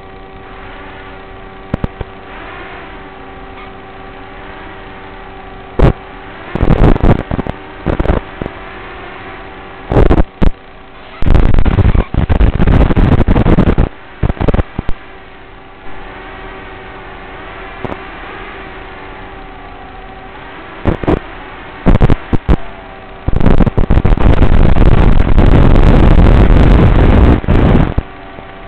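Audio of an analog FPV video link recorded in the goggles: a steady hiss with a buzzing hum, broken several times by loud bursts of harsh static. The longest burst lasts about five seconds near the end, where the video signal breaks up.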